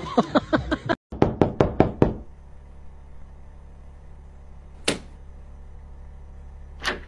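Rapid knocking on a door, about seven sharp knocks in a second, followed later by a few single knocks.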